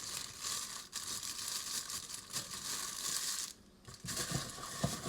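Honey graham crackers being crushed by hand inside their plastic sleeve: the wrapper crinkling over the crackle of crumbling crackers, with a brief pause a little after three seconds.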